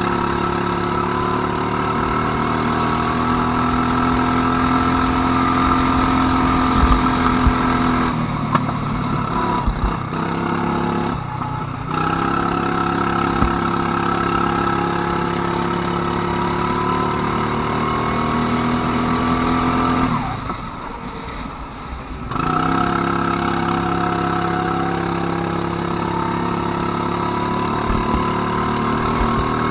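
Go-kart engine running at speed, its note climbing slowly in pitch as the kart accelerates. The engine sound drops away briefly about eight seconds in, again near eleven seconds, and for about two seconds around twenty seconds before coming back.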